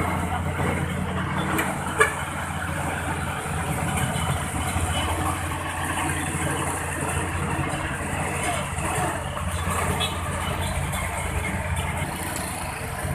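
Vehicle engines running steadily amid road traffic noise, with a single sharp knock about two seconds in.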